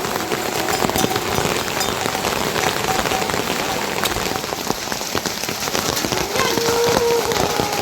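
Steady, fairly loud rain falling, with the dense hiss of the downpour and many small drop hits.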